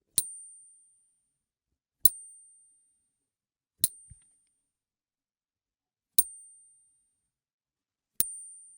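A Soviet 15-kopek coin clinked five times, about two seconds apart. Each clink leaves a thin, very high ring that fades over about a second, and the third has a quick second tap right after it.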